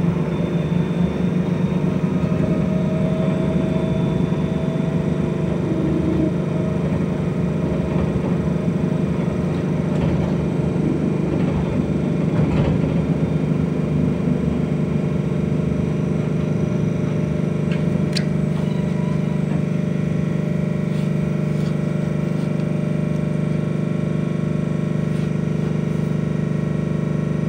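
Inside an electric bus: the steady hum and whine of its electric drive and onboard equipment over road noise, becoming steadier in the second half.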